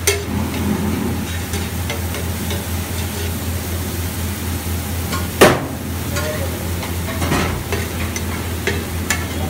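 A metal spatula scrapes and stirs butter and masala on a large flat iron griddle (tawa) while the food sizzles, with small clicks of metal on metal. One sharp, loud knock comes about five and a half seconds in, over a steady low hum.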